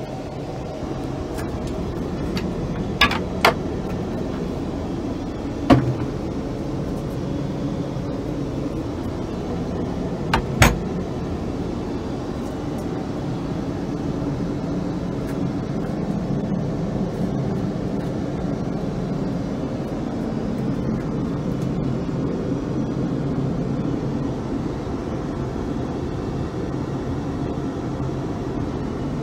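Steady low rumble of Airbus A380 cabin noise heard inside the aircraft's lavatory, with a few sharp clicks of fittings being handled in the first ten seconds or so.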